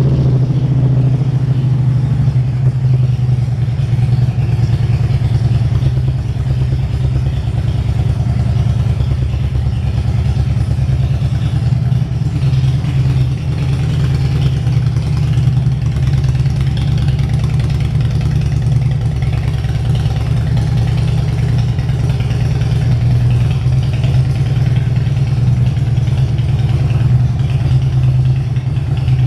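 2007 Harley-Davidson Electra Glide Classic's 1584 cc (96 cu in) air-cooled Twin Cam V-twin idling steadily, a fast, even low pulse with no revving.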